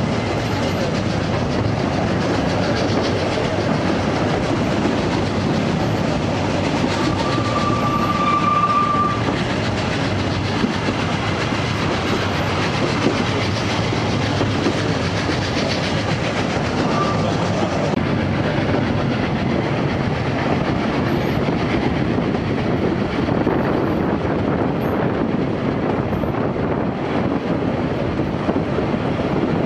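Steady running noise of a narrow-gauge steam train's coaches on the rails, heard from an open coach. A steady high tone sounds for about two seconds around eight seconds in, and briefly again later.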